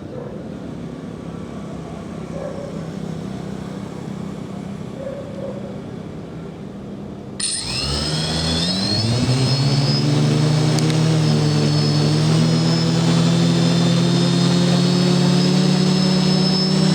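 Motor and propeller of an FPV model aircraft: a steady low hum, then about seven seconds in the motor spins up suddenly, its whine rising in pitch over a couple of seconds and then holding steady and louder.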